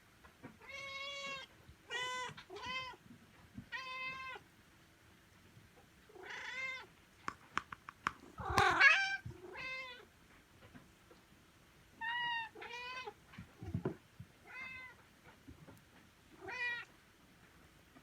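Domestic cats meowing repeatedly: about a dozen separate meows with short pauses between them, the loudest a little past the middle. A few faint clicks come just before that loudest meow.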